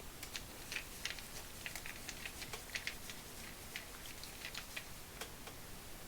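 Faint, irregular small metallic clicks and ticks from a Torx T10 driver turning out a screw from the cover plate of a 1/2-inch ratchet.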